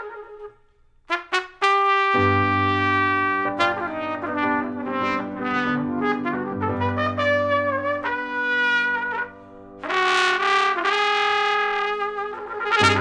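Jazz trumpet playing a melody over an upright bass line. After a brief pause at the start and a few short notes, the trumpet plays long held phrases, with a short break in the line about halfway through.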